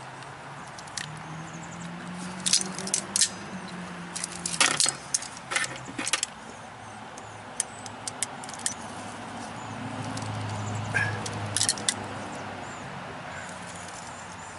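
Metal hand tools (pliers and a small metal drain fitting) clicking and clinking against each other and the drain pan's metal grate: a scattered run of sharp metallic clicks and jingles in clusters, over a faint low drone.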